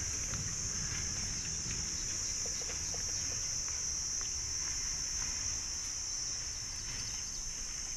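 Steady high-pitched drone of an insect chorus, unbroken and even in level, with a few faint ticks over it.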